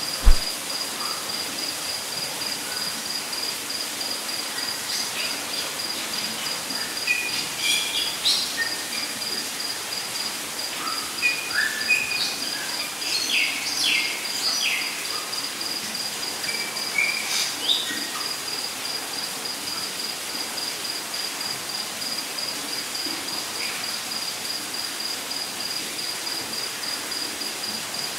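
Added nature-ambience track: an even hiss of light rain with a cricket chirping steadily throughout, and birds chirping now and then between about 5 and 18 seconds in. A sharp thump sounds at the very start.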